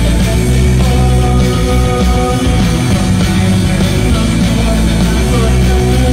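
Live rock band playing loud: electric guitars, bass guitar, keyboard and drums, with a heavy bass end and held guitar notes.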